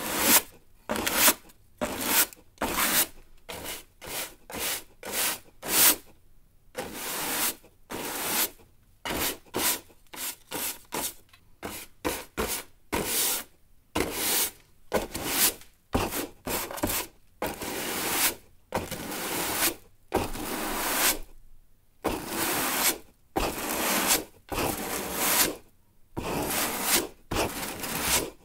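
Broom sweeping, stroke after stroke of bristles scraping the floor. The strokes are short and quick at first, then become longer and slower.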